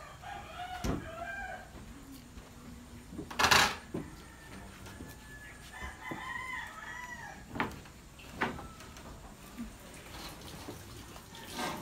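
A rooster crowing twice, once just after the start and again about six seconds in. Between the crows comes a short, loud rush of noise, and two sharp knocks follow a little later.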